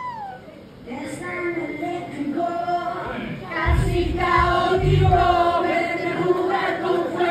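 Live band music with several voices singing together over held notes, and two heavy low thumps about four and five seconds in.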